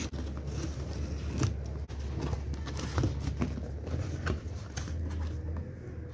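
A cardboard shipping box being handled and opened by hand: irregular taps, scrapes and rustles of the cardboard, and bubble wrap rustling as the contents are touched near the end, over a steady low hum.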